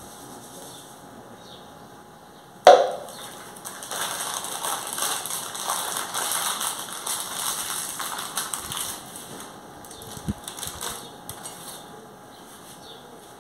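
A single sharp knock about two and a half seconds in, then about five seconds of crinkling and rustling as a foil-lined chocolate-powder packet is handled and folded, with a few light clicks near the end.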